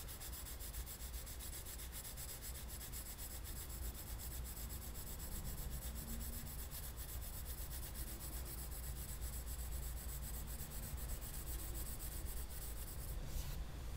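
2H graphite pencil laid flat and shading across sketchbook paper in quick back-and-forth strokes: a steady, soft scratchy rub.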